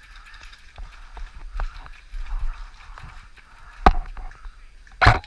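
Footsteps and gear rustling as an airsoft player moves across the field, then a single sharp airsoft gun shot about four seconds in. Right at the end a quick string of semi-auto shots begins, about three or four a second.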